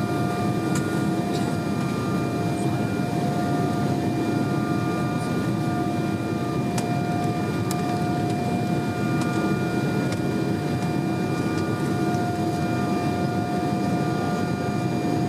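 Steady cabin noise inside an Embraer 195 airliner on approach: the rush of air past the fuselage and the hum of its General Electric CF34 turbofans, with several steady whining tones held throughout.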